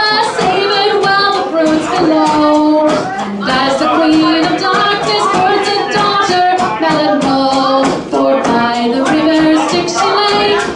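A woman singing a melody with a strong voice, holding notes that step up and down, accompanied by a frame drum beating a steady rhythm.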